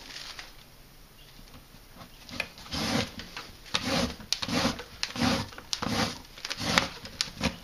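A caning peg being forced and worked into a tightly woven fibre rush seat. It makes a run of irregular rubbing knocks, about two a second, that begins a couple of seconds in.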